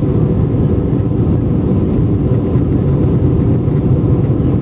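Steady low drone inside the cabin of an Airbus A320-232 in flight: its IAE V2500-series turbofans and the rush of air over the fuselage, heard from a window seat over the wing, unchanging in level.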